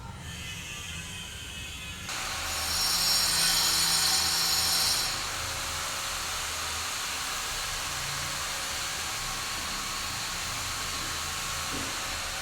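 A power tool running steadily on a building site. It starts about two seconds in and is loudest for the next few seconds, with a hissing high edge.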